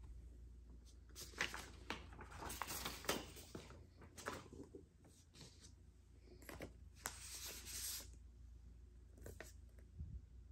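White paper inner sleeves of vinyl records rustling and sliding as they are handled, in irregular bursts with a few light clicks.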